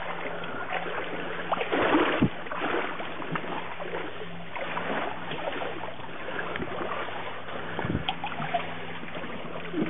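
Water sloshing and splashing around a person's legs as he wades through deep tidal water, with louder splashes about two seconds in and again near eight seconds.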